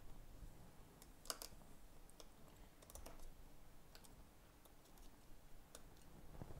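Faint, scattered small clicks and taps of fingers and a small tool handling the opened iPhone 7's internal parts on a bench mat, otherwise near silence.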